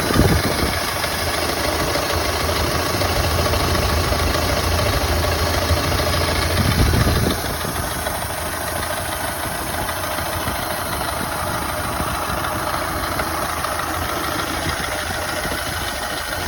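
Ford Model A four-cylinder flathead engine idling with a misfire; the low rumble eases about seven seconds in.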